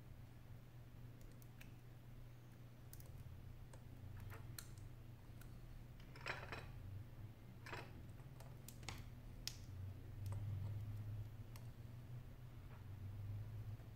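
Faint scattered clicks and taps of fingers and small parts against an opened Sony Xperia Z2's frame and circuit board, with a short scrape a little past the middle, over a steady low hum.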